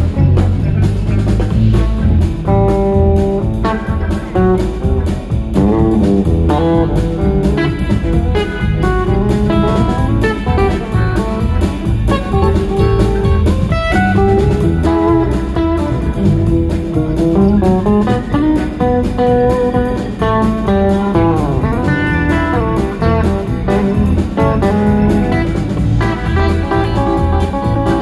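Live rock band playing an instrumental passage: electric guitar and bass guitar over a drum kit. A lead melody line runs above the rhythm, with notes bent in pitch about three-quarters of the way in.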